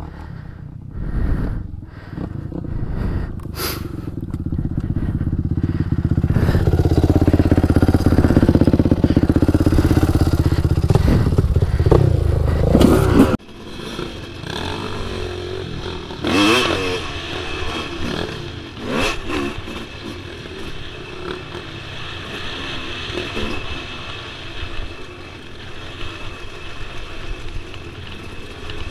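Dirt bike engines: a loud, steady engine run for several seconds, then after a sudden break the rider's Yamaha dirt bike on a trail, its engine revving up and down with the throttle over a steady rush of wind and clatter.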